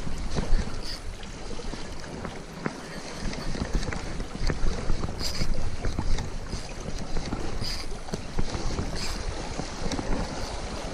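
Wind buffeting the microphone in a continuous low rumble over the wash of sea waves, with a few faint high ticks scattered through.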